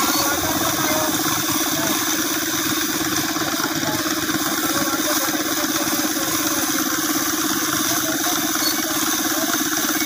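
Silage baling and wrapping machine running steadily under power while a bale is wrapped in stretch film, an even mechanical drone with a fast, regular pulse.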